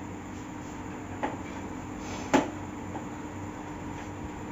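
A few short knocks, the loudest about two and a half seconds in, over a faint steady hum.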